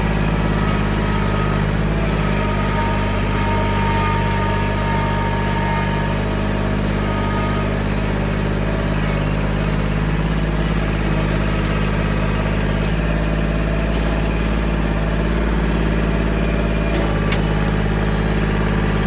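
Tractor engine running at a steady, even speed while the tractor drives with a tree held in its grapple.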